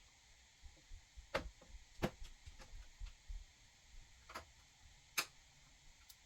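Several sharp, irregular clicks and light taps, typical of hands handling PC hardware; the loudest come about two seconds in and again about five seconds in.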